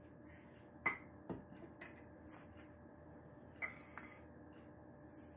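A few light clicks and knocks of kitchen items being handled at a countertop as parsley goes into a blender jar and a cucumber is picked up. The sharpest knock comes about a second in, with two more near the two-thirds mark, over a faint steady hum.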